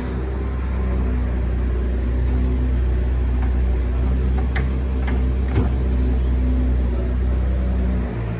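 Heavy construction machine's diesel engine running steadily, with three short metallic clanks about halfway through.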